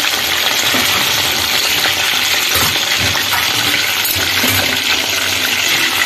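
Chicken pieces shallow-frying in hot mustard oil in a pan: a steady sizzle with bubbling crackle.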